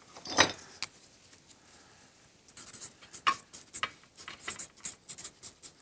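Felt-tip marker writing on paper, a run of short scratchy strokes starting about two and a half seconds in. A brief handling sound comes near the start.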